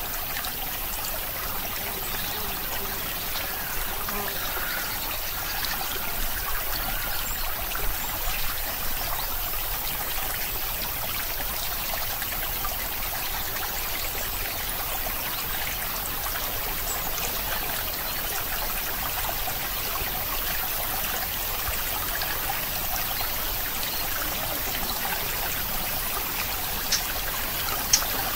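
A steady, even hiss like running water, with two sharp clicks near the end.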